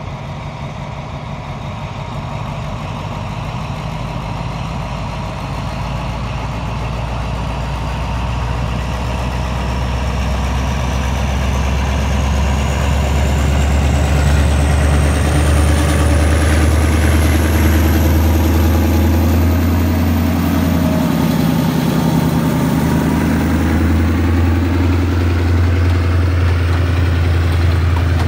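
Diesel locomotive engine running under load as it pulls a passenger train away from a station, its low drone growing louder as it nears. A thin high whine rises steadily in pitch as the train gathers speed, and the passenger coaches roll past near the end.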